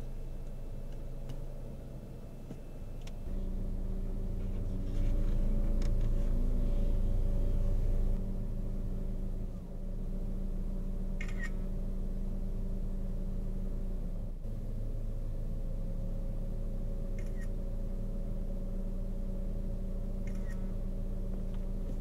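Steady low mechanical hum of a running motor, stepping up in level about three seconds in, with a few faint clicks.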